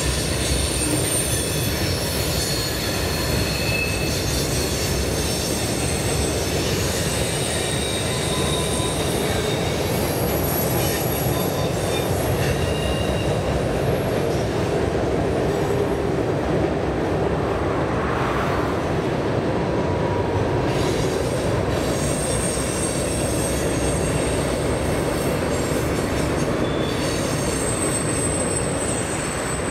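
Freight train of tank cars rolling across a steel girder bridge: a steady rumble of wheels on rail, with brief high-pitched wheel squeals coming and going throughout.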